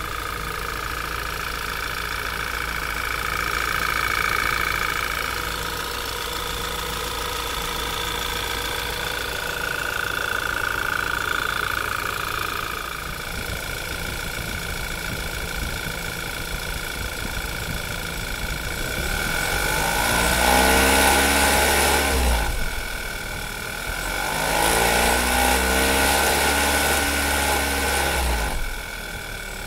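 Audi TT's 2.0 TFSI turbocharged four-cylinder engine idling cold, two minutes after starting, with a steady high whine over the idle. Past the middle it is revved lightly twice for a few seconds each, the pitch rising and then falling back to idle. The owner is listening for a suspect noise and is unsure whether it is there.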